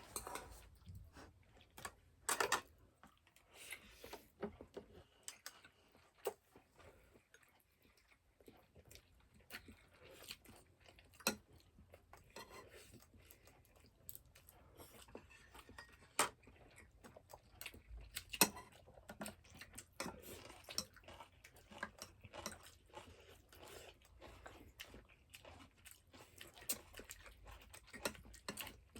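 A person chewing and biting food close to the microphone: faint, irregular wet crunches and small clicks, with a few louder bites along the way.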